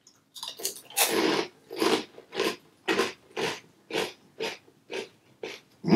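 Crunchy chewing of a fortune cookie, about two chews a second.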